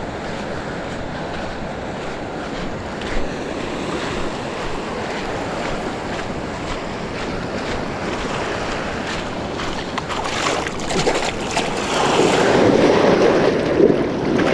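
Surf washing up a sandy beach, with wind buffeting the microphone. The wash gets louder about twelve seconds in, as the water runs in around the feet at the water's edge.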